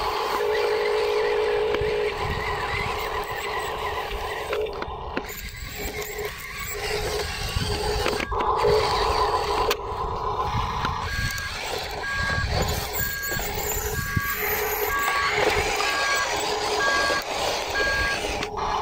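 Huina RC dump truck's electric drive whining as it runs over rough dirt, with a reversing beeper sounding regularly, about one beep every 0.7 s, through the second half.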